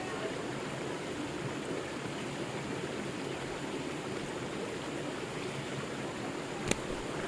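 River water flowing steadily, a continuous rushing. One sharp click about two-thirds of the way through.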